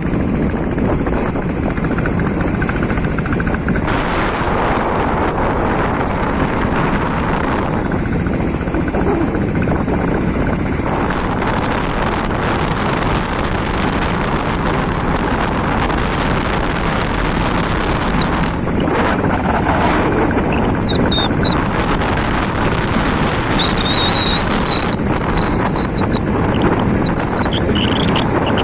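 A vehicle on the move, with a steady rumble and wind buffeting the microphone. A few short, high, whistle-like chirps come in near the end.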